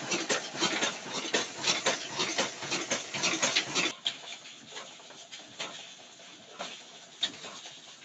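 Old Ruston Hornsby stationary engine running close by, giving a fast, uneven clatter of knocks. About four seconds in the sound drops to a quieter hiss with scattered clicks.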